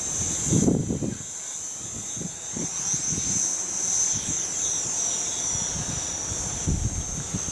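Quadcopter's electric motors and propellers whining steadily at a high pitch, the pitch wavering as the craft corrects in flight. Wind buffets the microphone with low rumbles about half a second in and again near the end.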